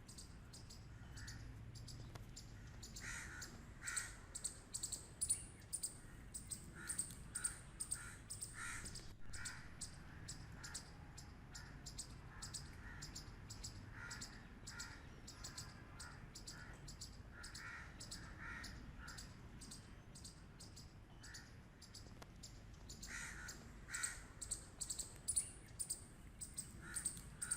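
Squirrel barking: a long series of short, sharp calls in irregular runs, busier in some stretches than others.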